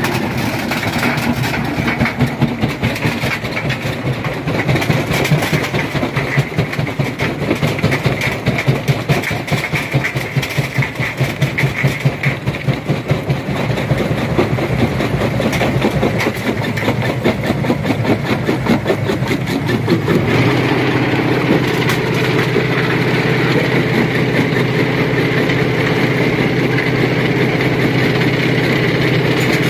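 Stone crusher running with a steady engine drone. For the first twenty seconds a dense, fast rattle of rocks being crushed rides over it; after that it settles into a smoother, steady running sound.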